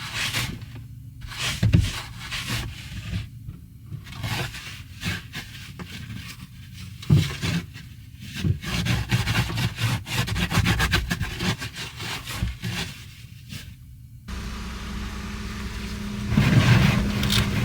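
Ski boots being taken off: irregular clicks and knocks of boot buckles and scraping plastic with rustling. About 14 seconds in, this gives way to the steady low hum of a car's engine running.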